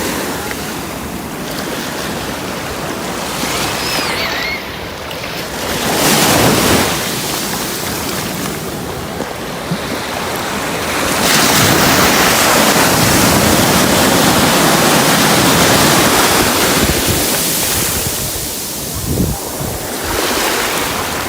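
Ocean waves washing up the beach and drawing back, swelling and ebbing, with a long loud surge of water through the middle and a lull near the end. Wind buffets the microphone.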